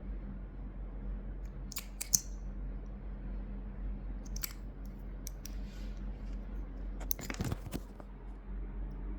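A few small clicks and handling noises, a cluster of them near the end, over a steady low hum.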